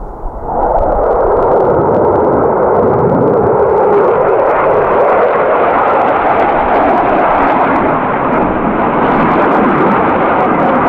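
F-15 fighter jet's twin jet engines passing low, a loud, steady jet noise with a sharp crackle in it that swells about half a second in and cuts off suddenly at the end.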